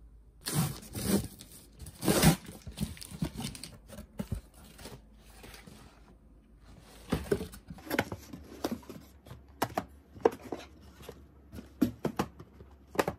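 Clear packing tape ripped off a cardboard shipping box in several long tears, with crinkling, during the first few seconds. Then the cardboard flaps and the small paper gift boxes inside are handled, a series of light knocks and taps.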